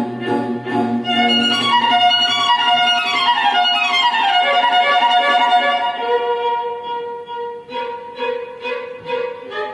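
Recorded violin music played through a pair of studio monitor speakers as a sound test of speakers that had long stood idle. Runs of falling notes come in the middle, then a long held note, with a pulsing accompaniment near the end.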